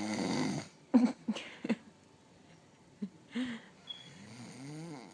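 A man snoring in his sleep: a long, rough snore at the start, then a quick run of short, sharp snorts, and a pitched snore that wavers up and down near the end.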